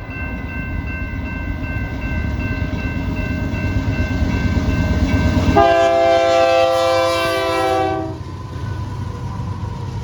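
Freight train's diesel locomotives rumbling through a grade crossing at close range, growing louder, then the locomotive air horn sounds one long chord blast of about two and a half seconds just past halfway through.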